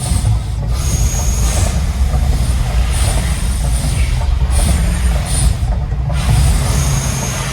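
Gas flame jets of the volcano fire show firing in four or five hissing bursts, each about a second long with short breaks between, over a loud, deep rumble.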